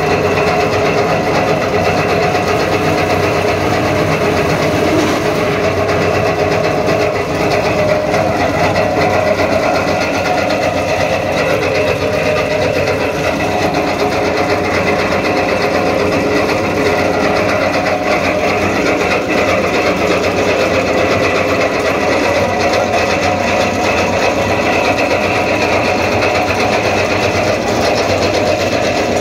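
Tractor-PTO-driven jute fibre stripping machine running steadily, its beater drum turning with a fast, even rattle over the steady running of the tractor engine.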